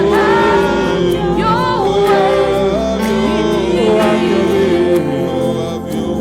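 Live worship music: sustained keyboard chords over a low bass, with singing voices gliding over them.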